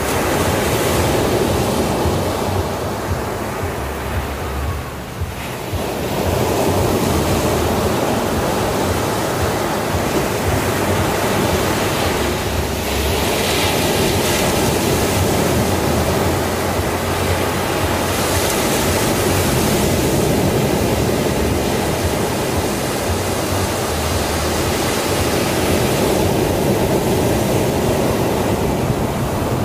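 Ocean surf breaking and washing up a sandy beach, a continuous rushing noise that swells and eases, dipping briefly about five seconds in.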